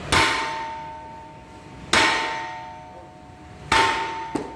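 Hammer blows on a large metal ship propeller: three strikes about two seconds apart, each leaving a bell-like ring of several steady tones that slowly fades. A lighter knock near the end cuts the last ring short.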